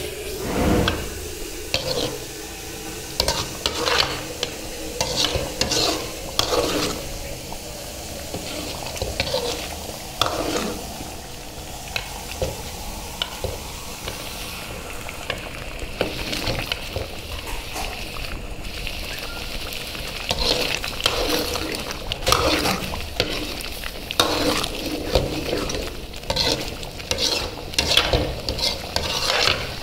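A spoon stirring thick paneer gravy in a metal kadai, scraping the pan in irregular strokes over a steady sizzle of the gravy cooking. The stirring is busier at the start and again in the last third, with a calmer spell in the middle.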